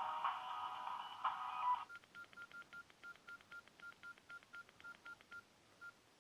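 Samsung C3350 mobile phone: a polyphonic ringtone cuts off about two seconds in. A quick run of short, high keypad beeps follows, about five a second, as the keys are pressed to step through the ringtone list.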